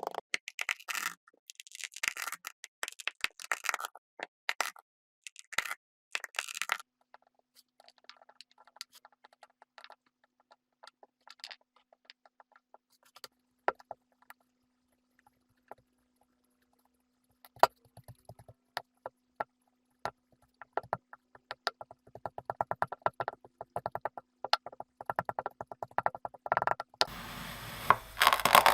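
Kinetic sand being worked by hand or cut, giving bursts of gritty scraping and crunching followed by many small crackling ticks. A steady hiss comes in near the end.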